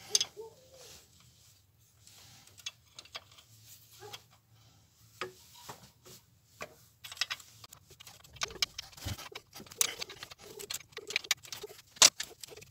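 Metal clicks and clinks of a 14 mm wrench on the fuel injector line nuts of a diesel injection pump as the lines are loosened. The clicks come sparse at first and more quickly from about seven seconds in.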